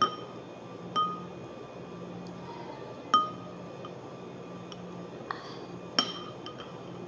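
Metal spoon clinking against a ceramic soup bowl as it stirs and scoops noodles: four sharp clinks with a brief ring, the loudest about three seconds in.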